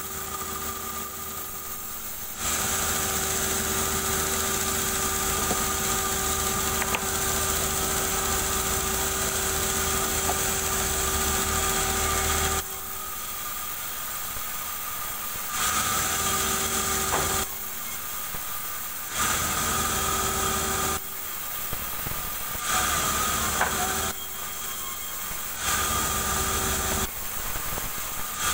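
Band sawmill running, its blade cutting durian wood in repeated passes: one long cut of about ten seconds, then four shorter cuts. Between the cuts the machine runs more quietly with a steady hum.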